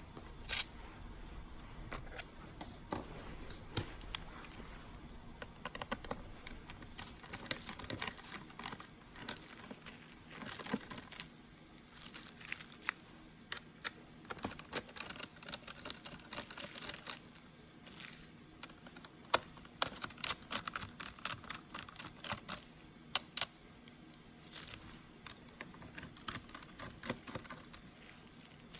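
Irregular small clicks, taps and rustling: hands handling and working on a laptop.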